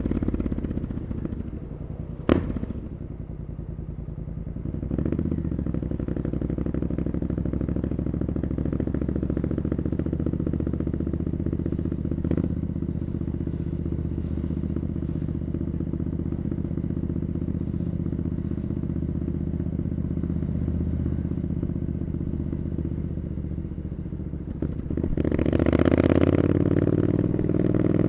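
Triumph Scrambler 900's parallel-twin engine running through an Arrow exhaust under way. It eases off over the first few seconds, with a single sharp click about two seconds in, then runs steady at low revs and revs up loudly near the end.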